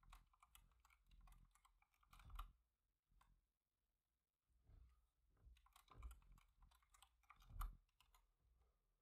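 Faint typing on a computer keyboard, in two runs of keystrokes with a pause of about two seconds between them, as a password is entered.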